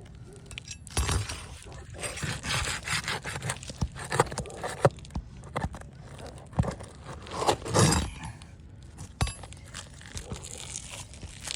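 Roofing nails being pried out from under shingles: irregular scraping and tearing with sharp clicks and knocks, loudest a little before the two-thirds mark.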